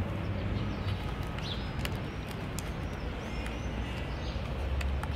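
Cardboard parts of a Google Cardboard viewer being folded and a tab pushed into its slot: a few light clicks and rustles over a steady low rumble. Faint bird chirps come in about three seconds in.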